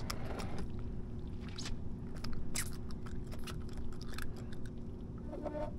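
Steady low hum of an idling boat engine, with a few short, sharp clicks and taps from handling fishing tackle.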